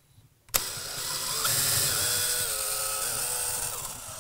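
DeWalt 20V cordless drill spinning a long wire probe up through a drywall ceiling. The motor starts about half a second in, runs for about three and a half seconds with its pitch rising and then dropping, and dies away near the end.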